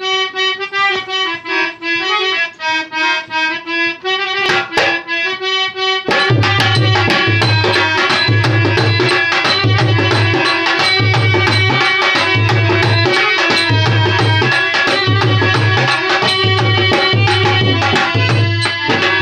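Harmonium playing a melody alone for about six seconds, then a dholak drum joins with a steady beat of deep bass strokes under quicker sharp slaps. This is the instrumental opening of a languriya folk song.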